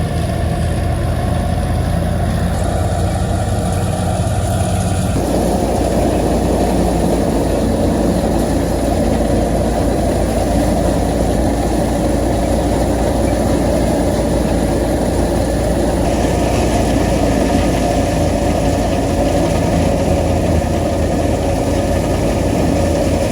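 Engine-driven wheat thresher running steadily, with a dense mechanical churn that grows fuller about five seconds in.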